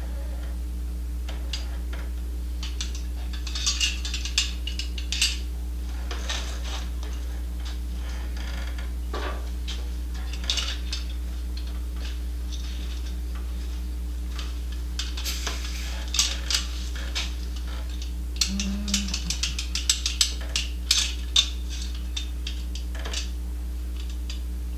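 Scattered light metallic taps and clinks, in short clusters, metal tools on steel parts, over a steady electrical hum.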